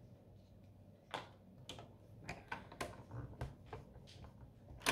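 Ink pad being dabbed onto a rubber stamp: a string of light, irregular taps, about two a second, with a sharper click near the end.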